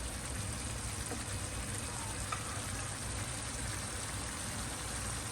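Pot of chouriço, bacon and onions in tomato sauce and white wine sizzling and simmering steadily as the wine's alcohol cooks off.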